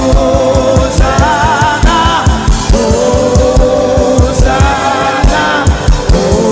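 Gospel worship music: sung melody with vibrato over a steady drum beat and a band.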